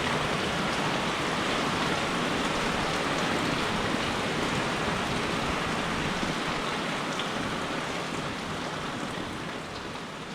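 Steady rain falling, a dense hiss with a few faint scattered drop ticks, fading out gradually over the last couple of seconds.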